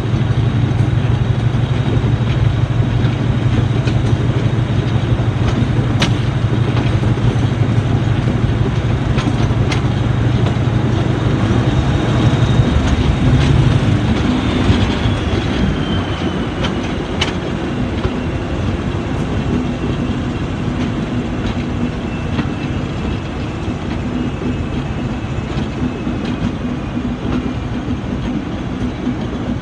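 Class 73 electro-diesel locomotive running on its diesel engine, heard from the cab side window: a strong low engine drone that drops back about halfway through, with occasional clicks of wheels over rail joints. In the second half there is a faint high, slowly falling wheel squeal on the curve.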